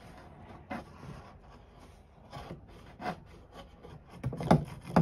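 Scraping and rustling against a cardboard box as a cat plays with a strip toy at its edge. Several sharp knocks come from about four seconds in, the loudest near the end.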